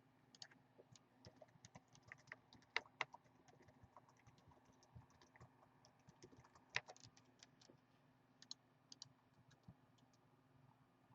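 Faint, irregular computer keyboard typing and clicking.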